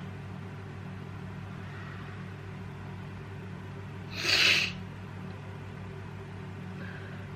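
A person with a cold sneezing once, a short sharp burst about four seconds in, over a steady low hum.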